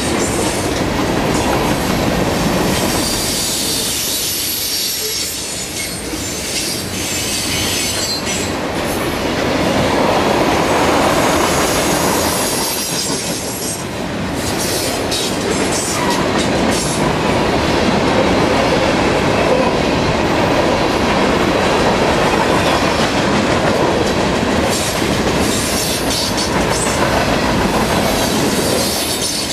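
Freight cars of a CSX train, boxcars and tank cars, rolling past close by: a steady rumble of steel wheels on rail with occasional clicks, and a faint high squeal in the first several seconds.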